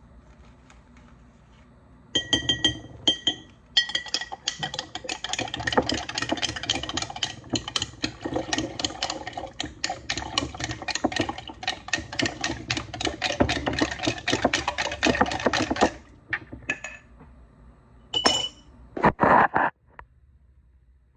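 A spoon stirring powdered tea into water in a glass mason jar: rapid, continuous clinking against the glass for about fourteen seconds, then it stops. A single clink and a short knock follow near the end.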